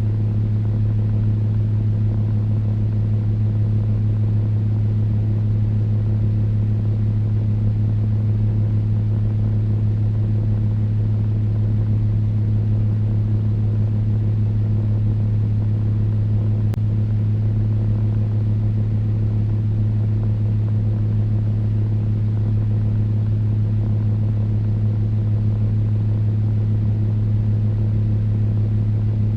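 Electric fan running steadily: a deep, unchanging hum under an even rush of air.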